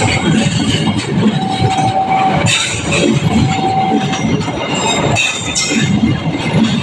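Stainless-steel passenger coaches of a KAI train rolling past, a steady rumble with the wheels clacking over the rail joints.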